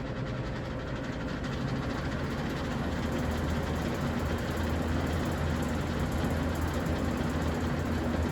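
Vintage Lasko box fan running on its high setting: a steady motor hum under the whoosh of the blades, growing louder over the first few seconds and then holding steady.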